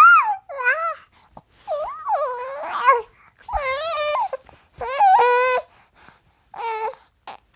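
Baby babbling: a string of short, high-pitched vocal sounds, each rising and falling in pitch, with brief pauses between them.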